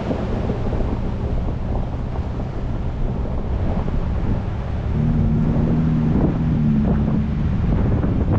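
Ford Bronco driving, with tyre and engine rumble and wind buffeting the microphone. About five seconds in, a steadier engine hum comes up and fades again near the end, with a few light knocks from the road.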